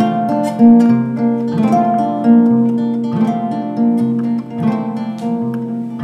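Background instrumental music of plucked string notes, a guitar-like melody over low sustained notes.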